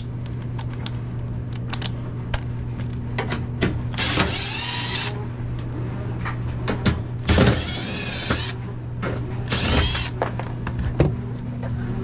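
Milwaukee 12V cordless impact driver running boot screws into the metal front panel of an air handler, in three bursts of about a second each. A steady low hum runs underneath, with small clicks from handling the panel.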